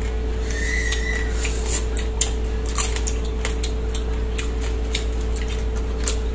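Scattered light clicks and taps of crab shells and tableware at a crab meal, heard over a steady low hum.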